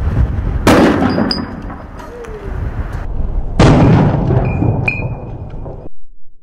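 Liquid-nitrogen tank at about 1500 psi rupturing in a boiling liquid expanding vapour explosion (BLEVE): a sharp, loud blast about a second in, then scattered cracks of flying debris. The blast comes again about three seconds later, replayed at half speed, and cuts off abruptly near the end.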